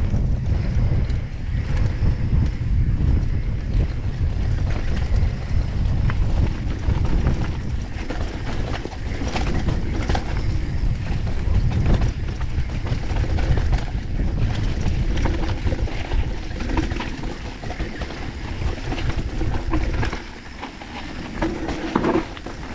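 Wind buffeting the camera microphone on a fast mountain-bike descent, over tyres rolling on hard-packed dirt. Frequent clicks and rattles come from the bike over the jumps. The rush eases briefly near the end as the bike slows into a berm.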